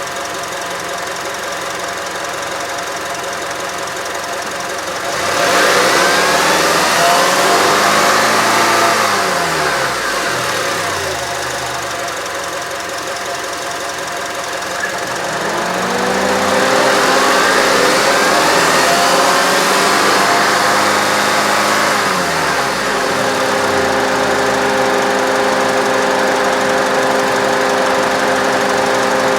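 Car engine with coil-on-plug ignition idling and revved twice. The pitch climbs about five seconds in and drops back a few seconds later, then climbs again at around sixteen seconds, holds for several seconds and falls back to a steady idle.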